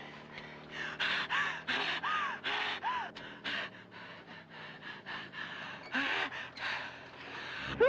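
A woman's sneezing fit: a run of quick gasping breaths, about three a second, some catching into short voiced 'ah' sounds, with a louder burst at the very end.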